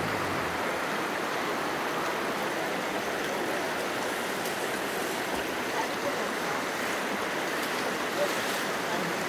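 The shallow Virgin River flowing steadily over rocks and cobbles.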